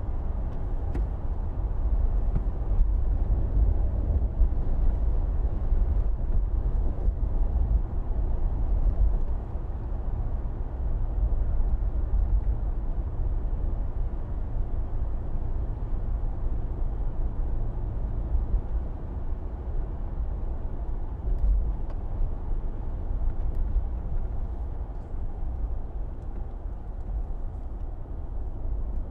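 SUV driving along a local street: a steady low rumble of engine and road noise.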